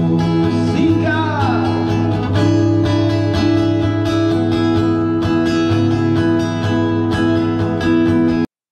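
Acoustic guitar strummed and amplified, with a man singing along into a microphone; the music cuts off suddenly just before the end.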